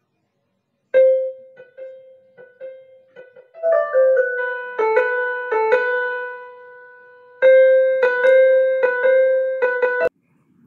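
Short piano intro tune: a single note struck repeatedly, then chords building over it, cut off abruptly with a click about ten seconds in.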